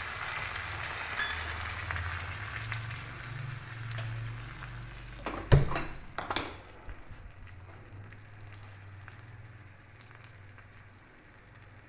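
Hot-oil tempering of mustard seeds, cumin, urad dal, dried red chillies, garlic and curry leaves sizzling, fading away with the stove switched off. Two sharp knocks a little past halfway.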